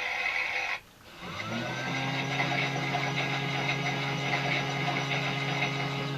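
Small electric motor of a toy Miele Softtronic W4146 washing machine turning its drum through a wash cycle. It runs steadily, stops a little under a second in, then starts again with a brief rise in pitch. It runs steadily once more and cuts off at the very end.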